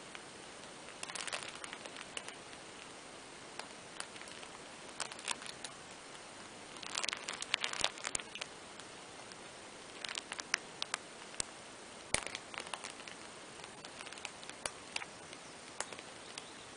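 Faint scattered clicks and soft rustling from two cats shifting and grooming on a fabric playmat, in small clusters about a second in, around seven to eight seconds, and again between ten and thirteen seconds.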